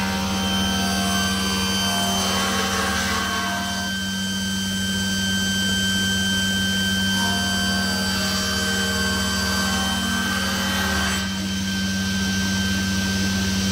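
Sliding table saw running steadily while its blade rips a narrow solid-wood board lengthwise, along the grain. The high hiss of cutting drops away about eleven seconds in as the blade clears the board, and the saw keeps running.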